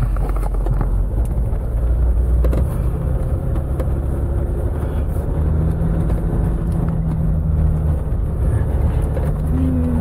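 Jeep's engine pulling at low speed up a rough, rocky dirt trail, heard from inside the cabin, its note shifting about halfway through. Scattered knocks and rattles come as the vehicle jolts over the rocks.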